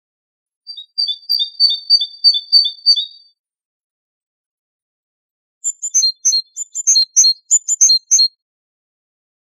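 Great tit singing: two bouts of a two-note phrase repeated several times, with a pause of about two seconds between them. The second bout, starting about six seconds in, is higher-pitched and sharper.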